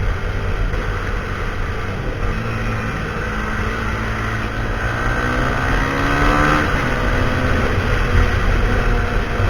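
Husqvarna SMR 511 supermoto's single-cylinder engine running through a full Akrapovic exhaust, its pitch climbing steadily for about four seconds as it revs up, then dropping back about two-thirds of the way through.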